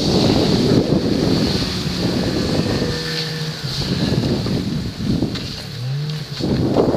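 Wind buffeting the microphone of a goggle-mounted action camera, with snow hissing and scraping under the rider gliding over groomed snow. The rush eases briefly about six seconds in as the rider slows, then picks up again.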